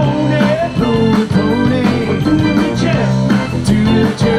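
Live rock band playing, with electric guitars, bass and drums, between sung lines.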